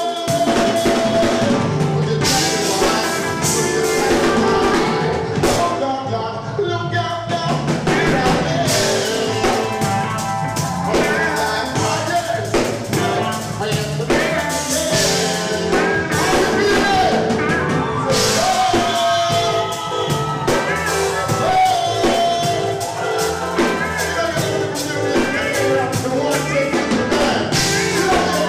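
Live rock band playing, with a singer over drums and amplified instruments.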